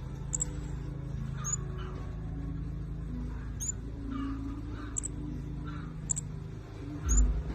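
Flowerpecker (burung cabe-cabe) calling busily: short, sharp, very high-pitched chip notes about once a second over a steady low hum. A loud low thump comes near the end.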